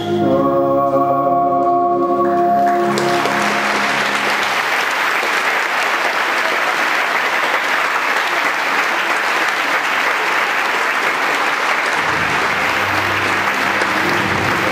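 Music with singing ends about two seconds in, and a large audience breaks into sustained applause. Music starts again under the clapping near the end.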